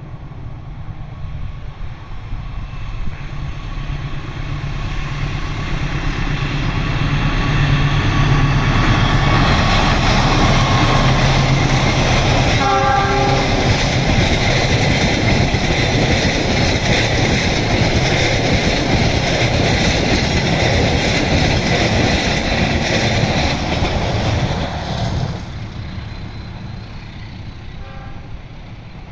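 A CC206 (GE C20EMP) diesel-electric locomotive and its passenger coaches running through a station at speed without stopping. Engine and wheel-on-rail noise build up, stay loud with steady wheel clatter for a long stretch, then drop off sharply near the end as the train moves away. A short horn blast sounds about halfway through.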